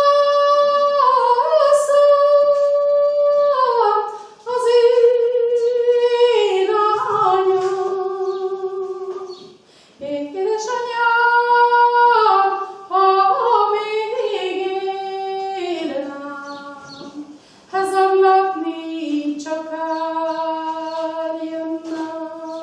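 A woman singing a slow Hungarian folk song unaccompanied, holding long notes and stepping between pitches, in phrases with short breaks for breath between them.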